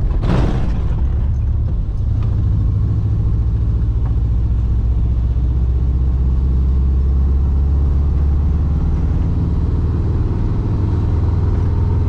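Volkswagen Kombi motorhome driving on a paved highway: steady engine drone and road rumble, with a brief whoosh about half a second in.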